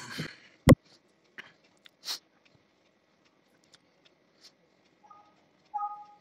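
A sharp click, then scattered faint clicks of mouse and keyboard at a computer. Near the end a short two-note electronic chime sounds twice, the second louder: a Windows system alert as a dialog box pops up.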